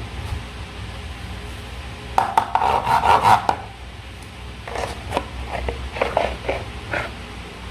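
Crackly rubbing and clicking from slime being worked by hand, in a dense run about two seconds in, then scattered clicks, over a low steady hum.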